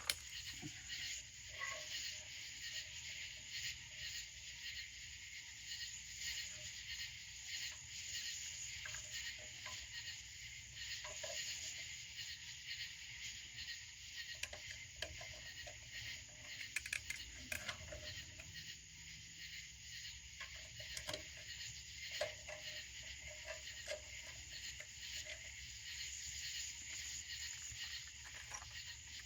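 Steady, faint high-pitched chorus of night insects, with a few scattered faint clicks and taps.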